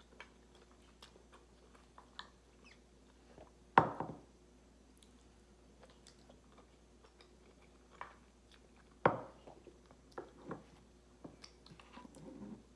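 Close-miked chewing and wet mouth sounds of eating creamy alfredo pasta, with small clicks throughout. Two sharp knocks stand out, about four seconds in and again about nine seconds in.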